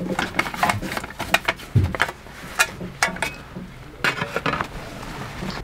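Irregular sharp clicks, knocks and rattles of a collapsible snow shovel's metal blade and shaft being taken off a backpack and handled.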